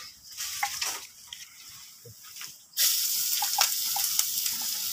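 Chopped aromatics going into hot oil in a wok: a few light knocks and scrapes, then about two and a half seconds in a sudden, loud, steady sizzle as they hit the oil.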